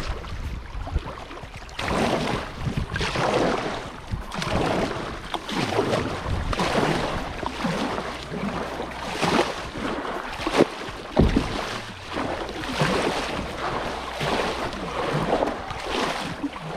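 Double-bladed kayak paddle dipping and splashing on alternate sides, about one stroke a second, as a sit-on-top kayak moves through shallow river water.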